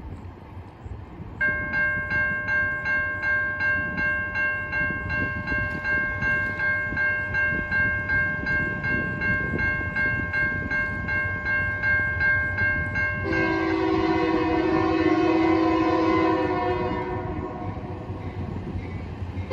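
A grade-crossing signal's Siemens low-tone electronic bell starts about a second in and dings steadily, roughly two to three strokes a second. About 13 seconds in, a freight locomotive's multi-chime air horn sounds a long blast over it for the crossing. A low train rumble runs underneath.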